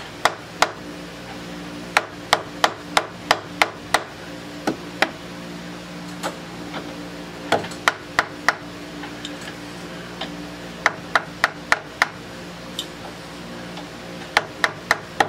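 Sharp metallic clicks in quick runs of several, about three a second, as the 3-in-1 lathe's spindle flange is turned round in steps, over a steady low hum.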